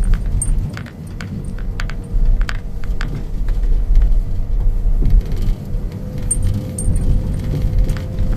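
Car driving slowly, heard from inside the cabin: a steady low rumble of engine and tyres, with frequent small clicks and rattles from loose items in the car.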